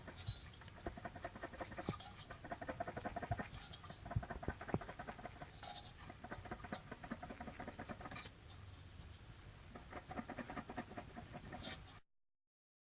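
Spare Mitsubishi 360 ME24 engine, with no compression left, its cooling fan rocked back and forth by hand: faint, irregular light clattering from play in the engine. There is only a slight rattle here, not a clearly metallic clatter. It cuts off suddenly near the end.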